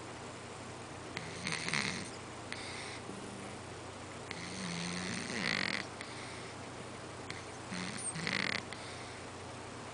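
Domestic cat snoring in slow, regular breaths, about one snore every three seconds. Each is a low rasp with a hissy breath over it.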